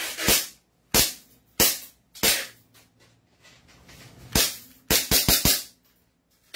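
Glock-style gas blowback airsoft pistol being fired, about ten loud, sharp shots with the slide cycling. Single shots come roughly every half second, then after a short lull a quick string of four near the end.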